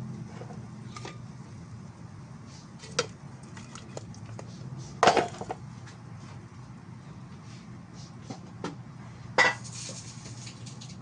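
Kitchenware clattering: a few separate clinks and knocks, the loudest about five seconds in and again near nine and a half seconds, over a low steady hum.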